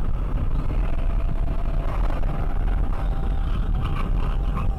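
Steady road noise inside a car driving at highway speed, picked up by a dashcam: a low rumble of engine and tyres. A thin, faint steady tone runs above it from about a second in.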